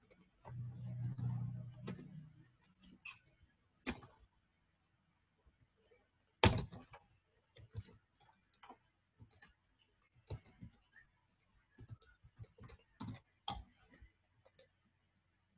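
Computer keyboard typing: scattered, irregular keystrokes, with the loudest single key strike about six and a half seconds in.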